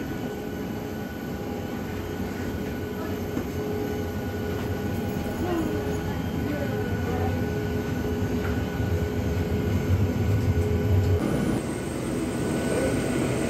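Steady machinery hum with a few held whining tones, heard in a jet bridge at the door of a parked airliner. A low rumble swells through the middle and then drops off sharply about eleven seconds in, where one of the whining tones also stops.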